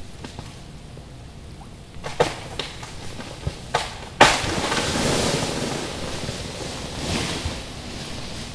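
Ice-laden tree branches snapping, with sharp cracks about two seconds in and near four seconds. Then a limb breaks and falls through the iced branches in a long noisy crash that swells again near the end and fades.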